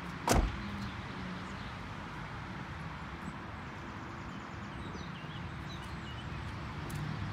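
Outdoor ambience: a steady background rush with a low hum, broken by a single sharp thump about a third of a second in. A few faint bird chirps come in the second half.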